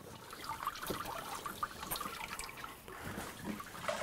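Whey trickling and dripping into a wooden tub as sour-milk curd wrapped in a cheese cloth is pressed out by hand, with faint irregular ticks of handling.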